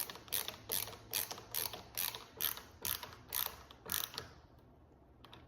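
Screwdriver driving a hinge screw into a stripped hole packed with glued toothpicks: a regular sharp click about two or three times a second, stopping about four seconds in.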